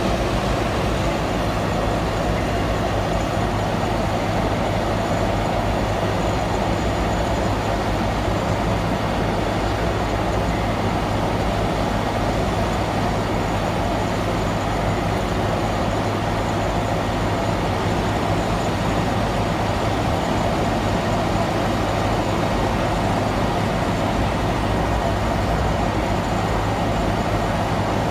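Caterpillar 432F2 backhoe loader's diesel engine and hydraulics running steadily to power a hydraulic chain saw attachment: a constant, unchanging machine drone.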